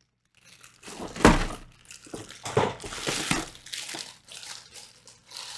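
Cardboard box and packaging being handled as an RC truck is pulled out, with a run of rustling and scraping noises and a thunk about a second in.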